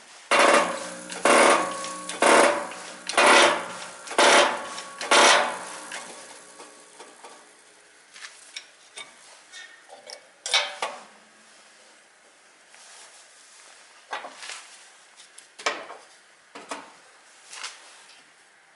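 Metal struck hard six times, about once a second, each blow ringing like a hammer on a steel part; then scattered lighter clinks and knocks of tools on metal.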